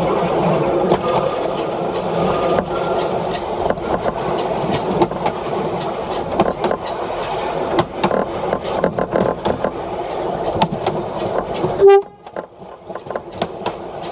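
DP railcar under way, its wheels clicking over rail joints through the running noise of the car. About twelve seconds in there is a short, loud horn toot, then the running noise drops away sharply and slowly builds again.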